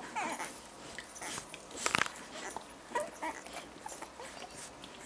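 Newborn puppies nursing: small squeaks and whimpers among quick suckling clicks, the loudest squeak about two seconds in.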